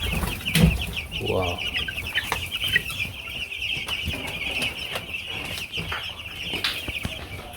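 A large flock of young chicks in a brooder peeping continuously, a dense chorus of short high cheeps.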